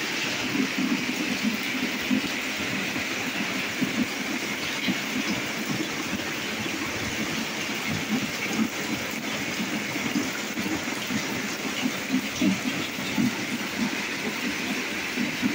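Storm rain with water leaking in, running and dripping into a flooded room: a steady hiss with constant irregular spattering and splashing.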